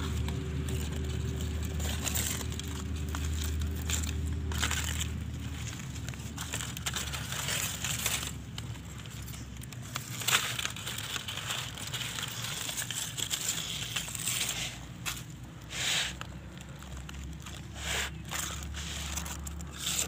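Charred aluminium foil crinkling and crackling as it is pulled open and folded back by hand, in uneven spurts with sharp crackles.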